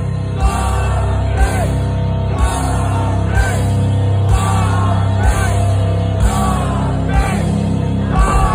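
Live heavy metal band playing loud through the concert PA: heavy bass, a drum hit about once a second, and vocals over the top. Just before the end a fast drum roll starts.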